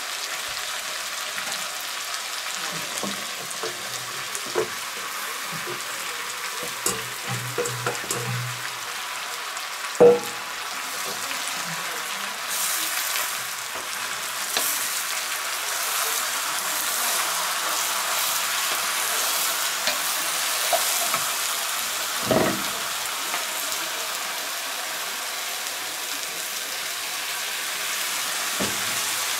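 Food sizzling and frying in a cast-iron Dutch oven over a charcoal fire, with a spoon stirring and scraping in the pot. A few sharp knocks of the spoon against the pot, the loudest about ten seconds in. The sizzle gets louder about twelve seconds in.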